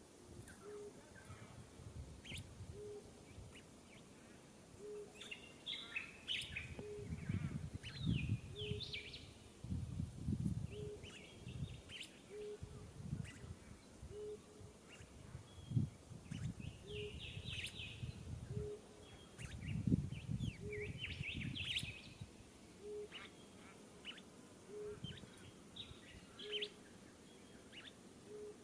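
Birds chirping in short clusters of quick high notes several times, over a short low note repeated about once a second and bouts of low rumbling.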